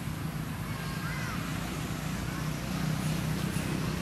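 A steady low engine hum, with a few faint short high chirps about a second in.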